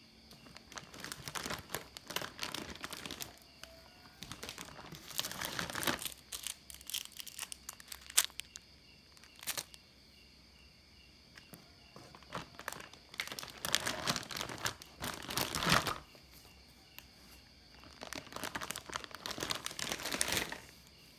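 Clear plastic packaging bag crinkling and rustling in several bursts a few seconds long as a bagged airsoft rifle is handled and lifted out of its cardboard box, with two sharp clicks near the middle.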